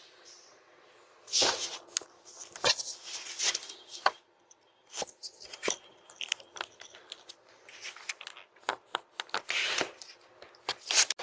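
Irregular clicks, knocks and short scraping rattles, as of something being handled, heard thin and tinny through a doorbell camera's microphone.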